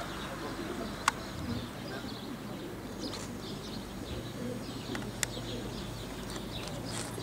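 Homing pigeons cooing over a low steady hum, with faint higher chirps and two sharp clicks, one about a second in and one about five seconds in.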